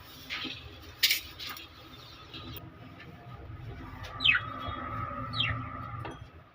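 Lovebirds chirping: two sharp, quick chirps falling in pitch, a little over a second apart, with a sharp click about a second in.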